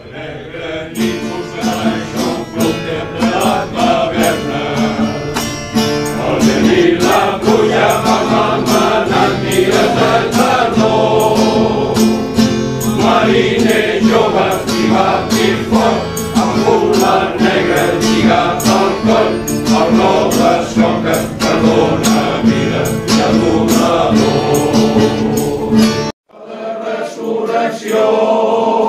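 Men's choir of tenors, baritones and basses singing in parts, over a steady regular beat. About 26 seconds in, the singing cuts off abruptly and another choir recording starts.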